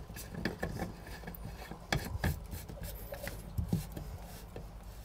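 The aerator of a Phoenix Faucets Catalina RV bathroom faucet being screwed back onto the spout tip by hand: faint rubbing and scraping of the threads with a few small, scattered clicks.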